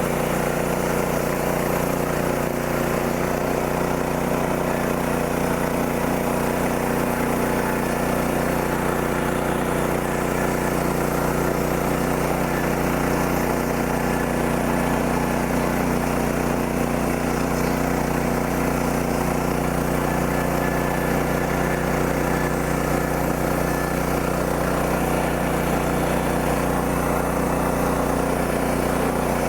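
Gas engine of a Woodland Mills HM126 bandsaw sawmill running steadily while the band blade slabs off a poplar log.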